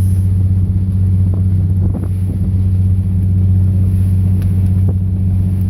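A fishing boat's diesel engine running steadily under way, a deep even hum.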